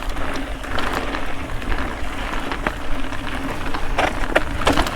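Mountain bike rolling down a rocky technical trail: tyres grinding over rock and grit, with frequent knocks and rattles from the bike over the bumps.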